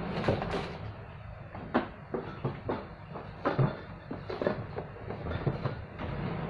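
Hollow plastic knocks and clicks as a flat-mop bucket is handled, turned over and set down on a table: a dozen or so sharp taps at irregular times.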